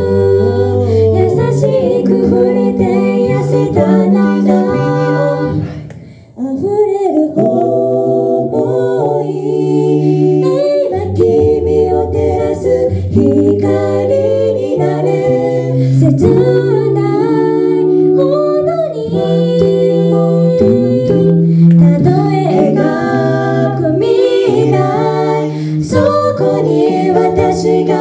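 A four-voice a cappella group sings a Japanese pop song into handheld microphones, with a low bass part under the melody and harmonies. The voices drop out briefly about six seconds in, then come back in together.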